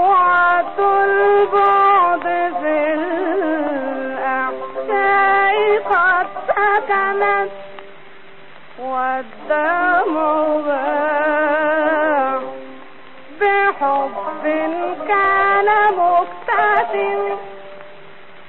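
A woman singing long, ornamented Arabic melodic phrases with a wide vibrato, pausing briefly about three times between phrases.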